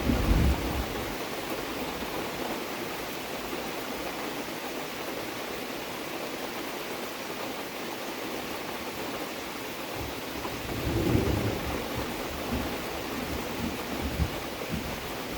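Steady rain falling, with a low rumble that fades out in the first second and swells up again about ten seconds in.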